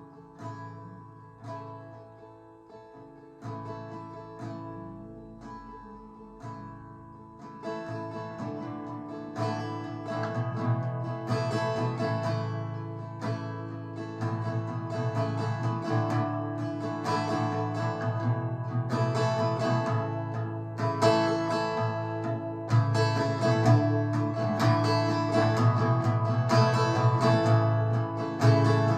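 Acoustic guitar strummed as an instrumental interlude with no singing: sparse single strokes at first, growing fuller and louder from about eight seconds in.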